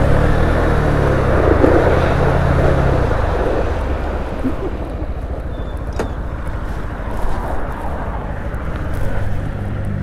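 Honda motorcycle engine running as the bike rolls slowly, then settling to a quieter idle as it stops, with wind noise on the microphone at first. A single sharp click about six seconds in.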